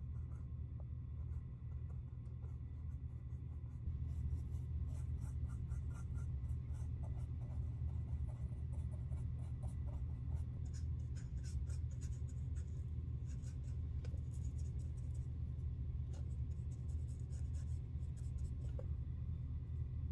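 Small flat synthetic paint brush stroking and dabbing white leather paint onto creased leather, touching up the cracks in a worn white leather sneaker. The strokes are quick, short and scratchy, and start about four seconds in. A steady low hum runs beneath them.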